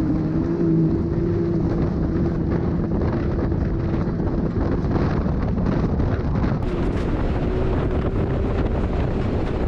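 Heavy wind buffeting the microphone over a vehicle engine running at a steady pitch.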